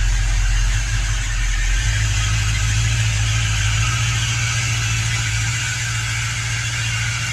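Excavator's diesel engine running steadily, a low hum heard from inside its cab, easing slightly in level during the second half.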